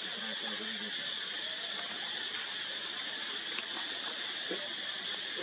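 Steady high-pitched insect drone, with a short rising chirp about a second in and another near the end.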